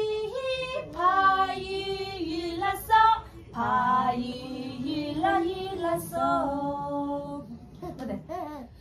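Women singing a playful sing-song together in held, gliding notes, with a couple of sharp hand claps.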